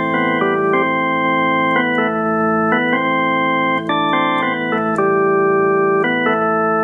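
Casio CTK-3500 portable keyboard played on its built-in organ tone: sustained chords that change roughly every second over a steadily held low note.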